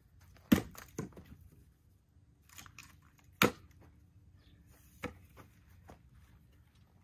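Split firewood knocking on wood as pieces are set onto a stacked woodpile: several sharp wooden knocks, the loudest about three and a half seconds in.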